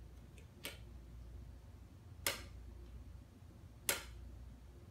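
Three sharp clicks about a second and a half apart, the last two loudest, from a cat working at a plastic Frolicat toy with its paw and head.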